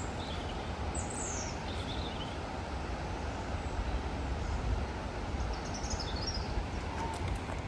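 Steady rush of a waterfall and its stream, with a few faint high bird chirps.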